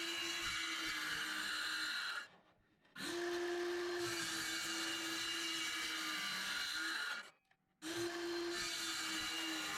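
Ryobi circular saw running with a steady whine while cutting MDF board into shims. It goes silent twice, about two seconds in and about seven seconds in, each time for under a second, then is running again.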